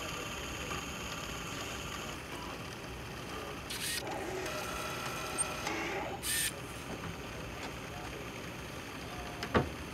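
3D bioprinter running, its motors whirring steadily as the syringe print head moves and extrudes gel. Two brief hissy bursts come near the middle, and a single sharp click comes near the end.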